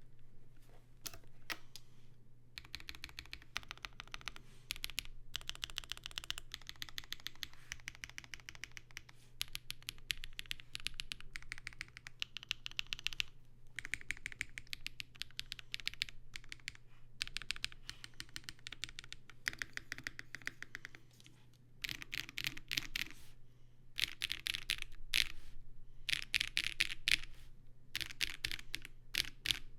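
Custom mechanical keyboard with factory-lubed Huano Caramel Latte switches, a polycarbonate plate and GMK keycaps being typed on fast, in runs of rapid keystrokes broken by short pauses. A steady low hum sits underneath.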